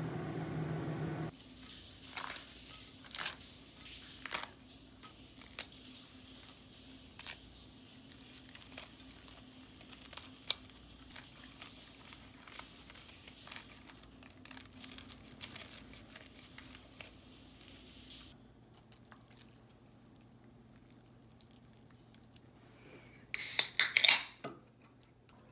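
Kitchen handling sounds: crinkling and squishing of a foil pouch and crisp snips as kitchen scissors cut through fried chicken, many small sharp crackles in a row. Near the end an aluminium beer can is cracked open, a sharp click and hiss, the loudest sound.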